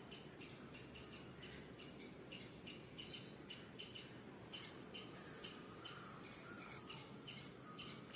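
Faint bird chirping: short, high chirps repeated about three times a second, over a low background hum.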